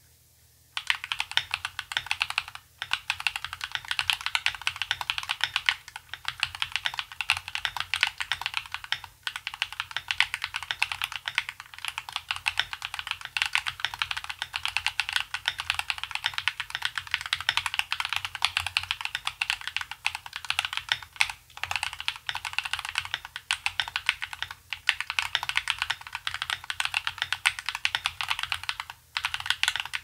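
Fast, steady typing on a modded Akko 3098B mechanical keyboard with lubed Akko POM Pink linear switches, POM keycaps, foam and tape mods: a dense stream of keystrokes with a few short breaks. The typing starts about a second in.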